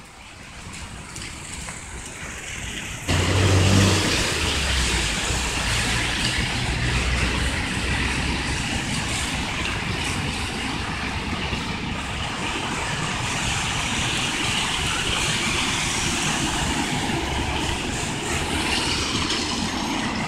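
Steady loud motor-vehicle noise with a low engine drone, starting abruptly about three seconds in after a quieter stretch.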